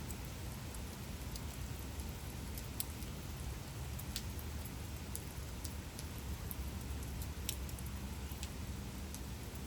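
Gentle steady rain falling, with a low even rush and scattered sharp drops ticking at irregular intervals.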